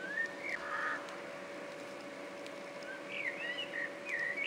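Budgerigars chirping and warbling: a rising chirp and a short harsh note near the start, then a run of quick warbled notes in the last second and a half, over a steady hum.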